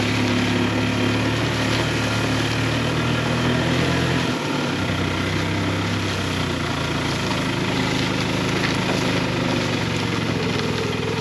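Small vehicle engine running steadily under load while towing a pasture poultry pen, its low note dipping briefly about four seconds in.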